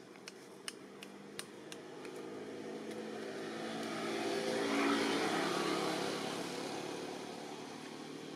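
A motor vehicle's engine passing by, swelling slowly to its loudest about five seconds in and then fading away. A few sharp clicks sound in the first two seconds.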